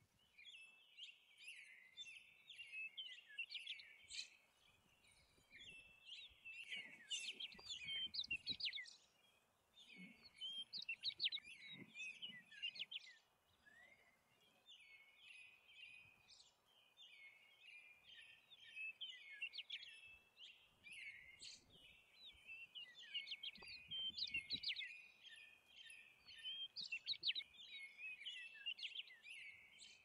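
A chorus of small birds chirping and twittering, many short quick notes overlapping. It starts abruptly after near silence and carries on without a break.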